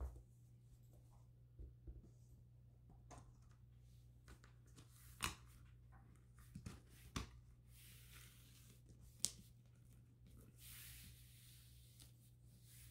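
Faint handling sounds of a picture frame being assembled: scattered light taps and clicks as a mat board is laid into a glass-fronted frame and pressed flat, with a soft rustle of board sliding about ten seconds in. A low steady hum runs underneath.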